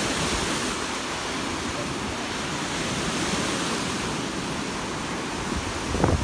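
Small lake waves breaking and washing up a sandy beach, a steady rush of surf. Right at the end, wind starts buffeting the microphone with a low rumble.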